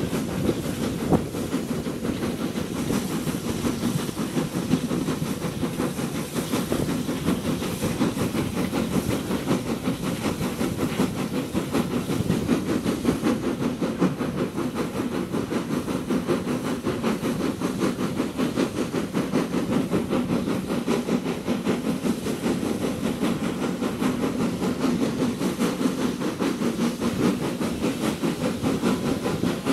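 Hunslet Austerity 0-6-0 saddle tank steam locomotive working hard up a steep gradient, its exhaust beating in a steady, even rhythm with a hiss of steam. It is heard from an open window of a carriage behind, with the carriage wheels running on the rails under it.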